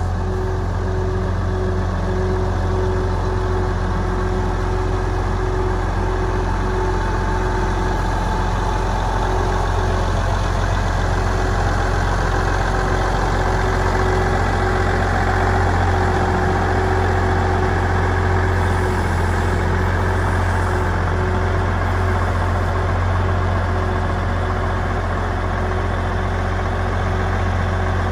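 Case IH 9370 tractor's diesel engine idling steadily, a low, even rumble with a steady hum above it that holds unchanged throughout.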